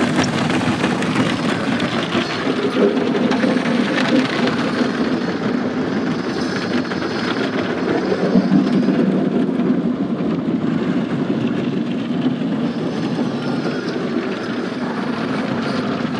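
Tunnel car wash working over a truck, heard from inside the cab: a steady noise of wash machinery and water hitting the body.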